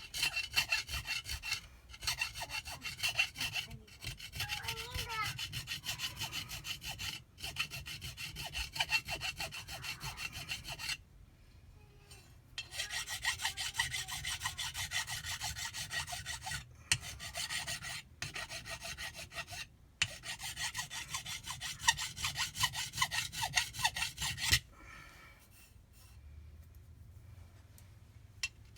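Hand file rasping back and forth on the metal of a Kawasaki SXR 800 jet-pump part in quick strokes, smoothing down damaged edges. The strokes come in long runs, stopping briefly about eleven seconds in and again for the last few seconds.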